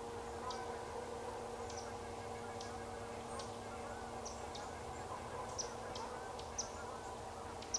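Night woodland ambience: a steady low hum with about a dozen short, high chirps scattered irregularly over it. No howl is heard.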